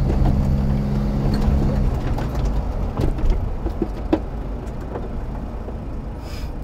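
A motor vehicle's engine running, with a steady low hum that drops away about two seconds in. A low rumble continues, with scattered light clicks and knocks.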